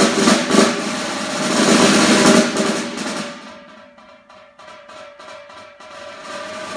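Snare drum played with sticks: a loud, dense roll that swells and then dies away about halfway through, followed by soft, separate taps, and a roll building up again near the end.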